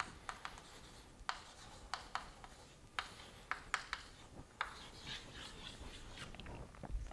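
Chalk writing on a chalkboard: a string of short, sharp taps as the chalk strikes the board, with light scratching strokes in between.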